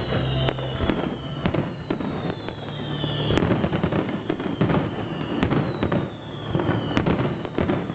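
Aerial fireworks going off in a dense string of sharp bangs and crackles, with several whistles that fall in pitch, each ending in a loud bang.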